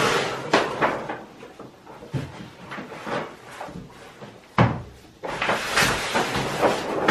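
Kraft wrapping paper rustling and crinkling as a rolled side of heavy Herman Oak holster leather is unwrapped and rolled out on a wooden table, with a few light knocks early on and one sharp thump about four and a half seconds in.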